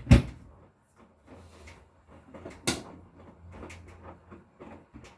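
Two sharp knocks about two and a half seconds apart, the first the louder, with a faint low hum between them.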